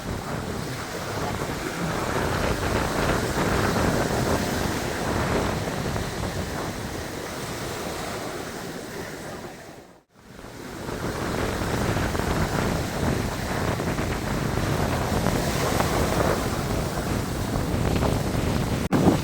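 Wind buffeting the microphone over the steady rush of surf. The sound fades out briefly about ten seconds in and comes back, and there is a sharp click near the end.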